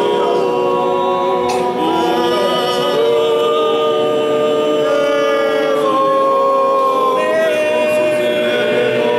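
Group of voices singing a church hymn a cappella in harmony, holding long notes and moving slowly from one chord to the next.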